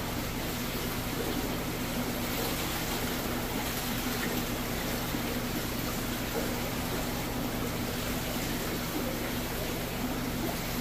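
Steady hum and rush of running water from aquarium pumps and filtration, even and unbroken.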